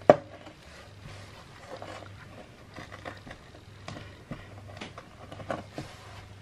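A sharp knock just after the start, then scattered soft crunches, scrapes and small clicks as crumbly bath bomb mixture of bicarb and citric acid is scooped by hand and pressed into a metal bath bomb mould.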